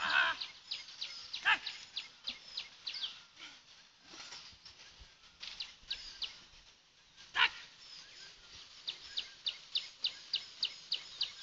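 Small birds chirping in quick, repeated short high calls, with a dog barking three times: near the start, about a second and a half in, and again past the middle.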